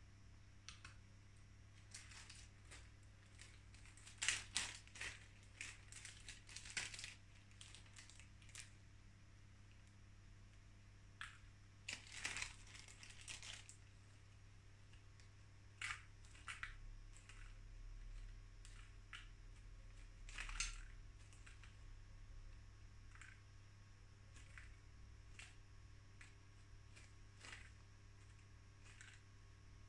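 Faint, intermittent crinkling of a small plastic packet of hops, with light clicks and rustles as the hops are scooped out and weighed on a digital gram scale. A faint low hum runs steadily underneath.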